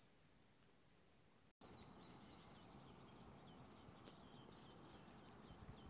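Faint outdoor quiet. After a cut, a light hiss comes in with a small bird's quick run of high chirps, about six a second for a couple of seconds, then a few lower notes.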